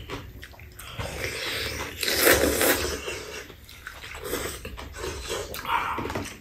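Noodle slurping and chewing while eating kalguksu, with the loudest slurp about two seconds in.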